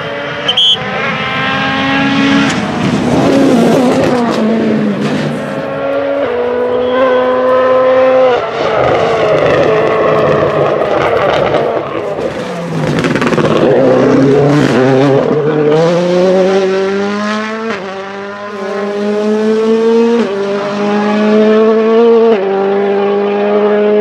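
World Rally Cars' turbocharged 1.6-litre four-cylinder engines accelerating hard on a rally stage. The pitch climbs and snaps back in quick upshifts, with a few sharp cracks. About halfway through, a car passes close by with a falling pitch.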